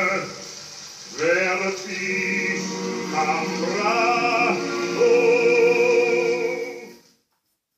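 Vinyl record played on a Saba turntable: a German-language song with a wavering sung line over accompaniment, which cuts off abruptly near the end.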